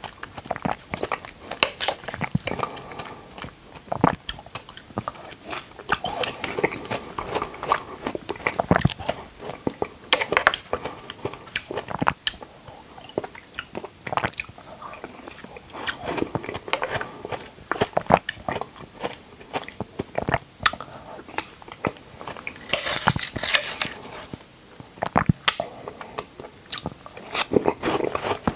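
Close-miked biting and chewing of dragon fruit: an irregular, steady run of small mouth clicks and smacks.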